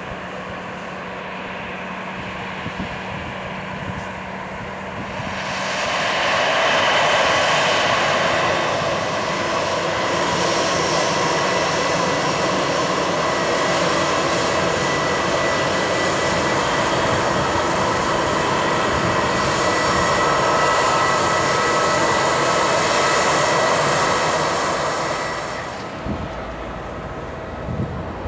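Jet airliner turbofan engines: a steady whine and roar with high tones that builds up about five seconds in, holds, and falls away near the end.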